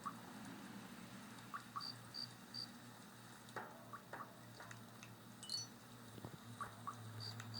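Faint night-time nature sounds: scattered short chirps and croaks from frogs and insects over a low steady hum.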